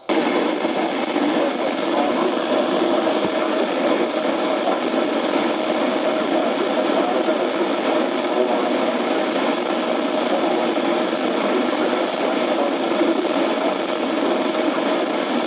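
Steady radio static: a receiver's hiss with no program audio.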